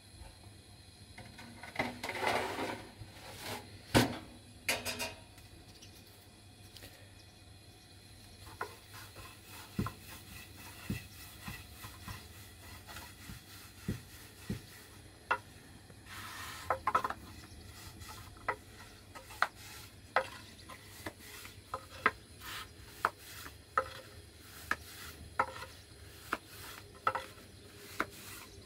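Thin wooden rolling pin working flatbread dough on a wooden board, knocking and clicking against the board about once or twice a second through the second half. A sharp knock about four seconds in comes as a sheet of bread is handled at the domed metal griddle.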